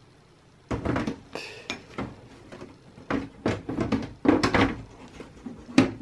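Metal side cover panel of a Dell Precision T5500 tower being fitted back onto the case: a run of knocks, clatters and scrapes that starts about a second in as the panel is lowered, slid and pressed into place, with the sharpest knocks near the end.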